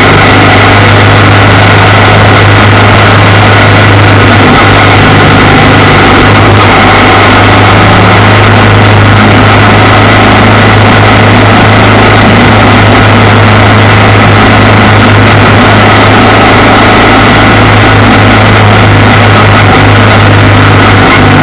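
Motorcycle engine running steadily at cruising speed, with wind and road noise heavy on a camera mounted low by the front wheel. Loud and even, with no change in engine speed.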